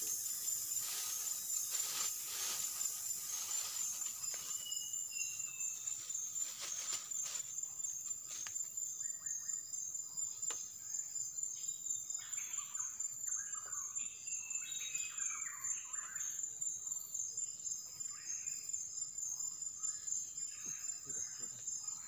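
Forest insects keep up a steady, high-pitched pulsing drone while birds call now and then, most busily past the middle.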